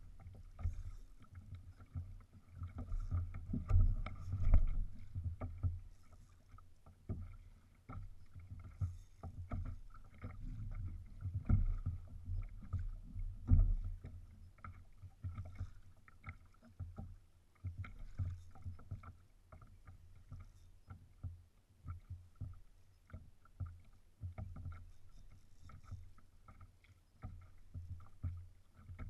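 Choppy water slapping against a fishing kayak's hull, with gusty wind buffeting the microphone. Through it comes a fine, irregular ticking from a fishing reel being cranked while fighting a fish.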